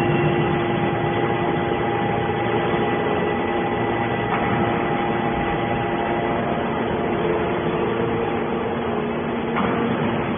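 Hydraulic scrap metal baler's power unit running steadily: a constant machine hum with a few steady tones over noise, with a slight change in the sound about four seconds in and again near the end.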